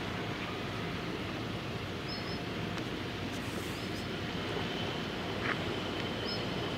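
Steady outdoor rumble and hiss, with a faint low hum under it and a few faint, short high chirps.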